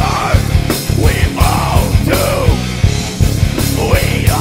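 A heavy metal band playing live: fast, steady drum and cymbal hits under distorted electric guitars and bass, with sliding, wavering high notes on top.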